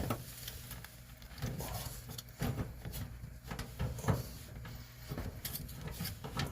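Scattered light clicks, knocks and rubbing from channel-lock pliers working a threaded water-supply hose fitting loose on a clothes dryer.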